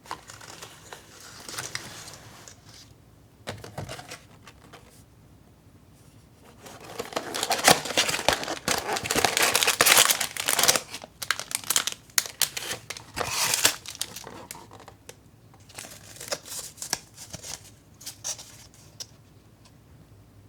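Packaging being handled and crinkled, in uneven bursts that are loudest through the middle of the stretch.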